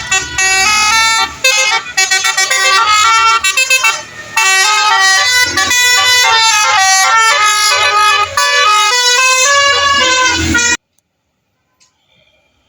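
Basuri 'telolet' musical air horn on a bus playing a melody of quick stepped notes. It cuts off suddenly near the end.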